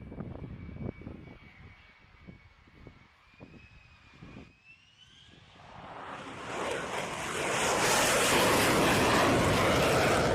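F-35B Lightning II's jet engine as the jet passes. A faint whine rises in pitch, then about halfway through the jet noise quickly builds to a loud, steady rush that lasts to the end.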